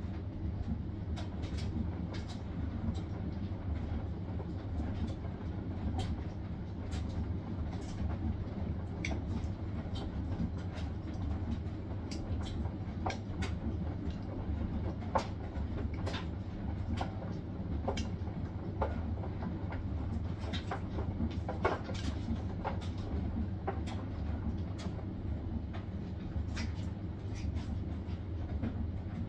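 Hisense washing machine running its spin cycle: a steady low rumble from the turning drum, with frequent irregular clicks and knocks over it.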